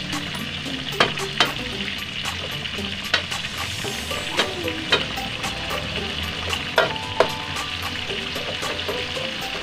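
Chicken deep-frying in hot oil: a steady sizzle with sharp pops and crackles every second or so, as the chicken fries to golden brown.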